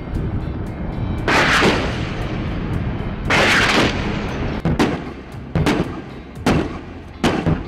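AH-64 Apache attack helicopter weapons fire and explosions over a steady low rotor drone. Two longer blasts come in the first four seconds, then shorter bangs about once a second.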